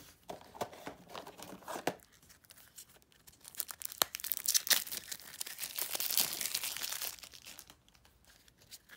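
Clear plastic shrink wrap being torn and peeled off a deck of game cards, crinkling loudly for about four seconds in the middle.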